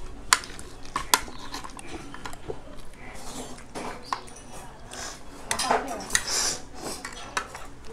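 Spoon and dishes clinking and scraping on a plate while eating, with two sharp clinks about a second apart near the start and a denser patch of scraping past the middle.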